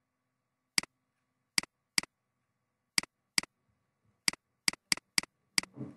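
Computer mouse buttons clicking, about ten sharp clicks at uneven intervals, some in quick pairs, as brush dabs and colour samples are made in a painting program.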